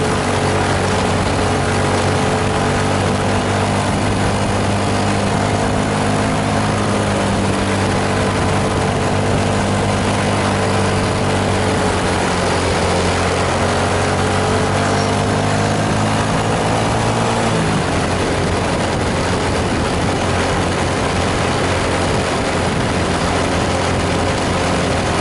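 A bus's diesel engine labouring steadily, its pitch sagging a little and recovering, over a constant hiss; about two-thirds of the way through the engine note drops away suddenly and the hiss carries on.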